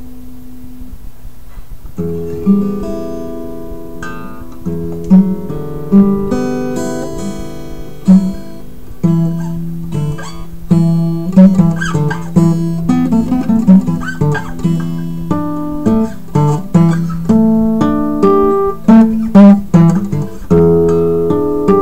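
Acoustic guitar played fingerstyle. A chord rings and fades for about the first two seconds, then a continuous run of finger-plucked notes and chords follows, with sharp, loud accents.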